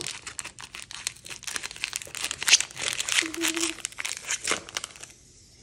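Foil booster-pack wrapper crinkling and crackling as it is torn and pulled open by hand. The crackle stops about five seconds in.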